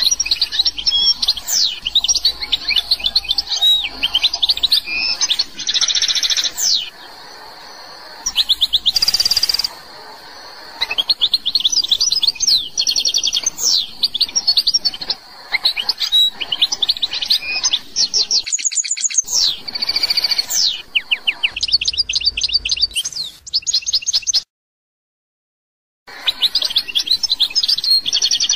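Algerian goldfinch singing: a long, fast run of twittering trills, rapidly repeated notes and sweeping whistles, broken by a brief silence about three-quarters of the way through.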